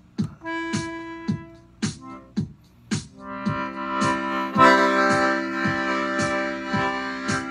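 Instrumental music: an accordion over a drum-machine beat. The drum machine ticks steadily about twice a second, with a short held accordion note near the start, then full sustained accordion chords join about three seconds in and swell a moment later.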